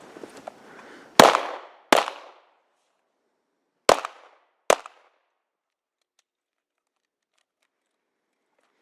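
Four rifle gunshots in two pairs: two less than a second apart about a second in, then two more about four seconds in, each with a short echoing tail.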